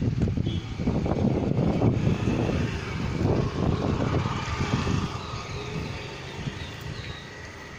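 Wind buffeting a phone microphone outdoors: an irregular low rumble that eases off over the last few seconds, with faint bird chirps above it.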